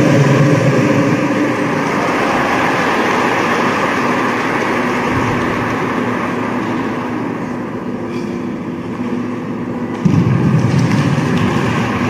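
Audience applause in an ice rink after a figure skating program ends, thinning out over several seconds. About ten seconds in, a louder low sound starts.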